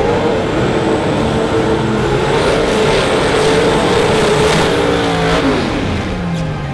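Drag racing cars running at high revs. The engine note holds at a steady high pitch for about five seconds, then falls away near the end.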